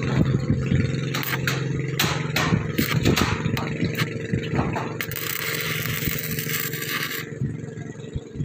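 Tools knocking and scraping on corrugated steel deck sheets over a steady engine hum, with a short hiss of about a second and a half beginning about five and a half seconds in.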